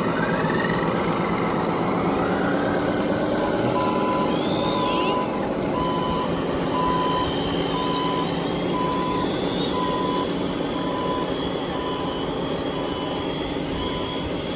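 Radio-controlled model trucks running, with motor whines that rise in pitch early on and a reversing beeper beeping steadily about twice a second from about four seconds in.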